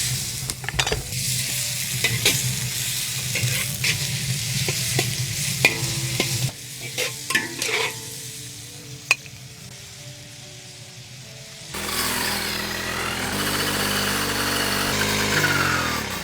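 Food sizzling as it is stir-fried in a pan, with a spatula scraping and clicking against the metal, over a steady low hum for the first six seconds or so. The sizzle drops away about halfway through and comes back loud about twelve seconds in.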